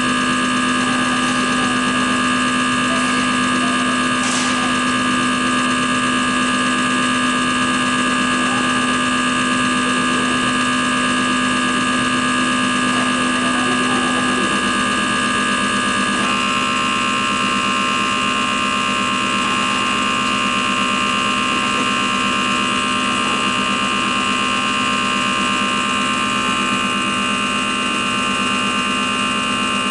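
CR926 common rail test bench running an injector test: its drive motor and high-pressure pump give a steady hum and whine with several steady tones, which shift in pitch a little past halfway through as the bench moves on in the test.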